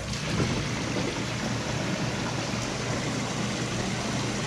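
Jacuzzi hot tub's jet pump switching on suddenly and running steadily, its jets churning the water with a low motor hum underneath. The pump is primed and pushing water through the jets, with no airlock.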